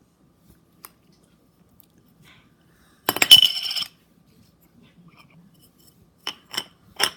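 Slime being handled: a short burst of crackling, popping clicks about three seconds in, then a few single sharp clicks near the end.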